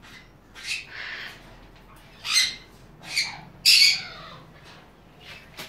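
Crimson-winged parrots giving a series of harsh squawks, about five separate calls, the loudest about four seconds in.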